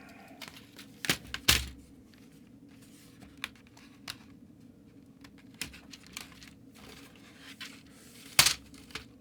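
Sharp plastic clicks and knocks from a cheap membrane keyboard's casing and keys being handled and pried apart. The clicks are irregular and spaced out, with the loudest ones about a second and a half in and again near the end.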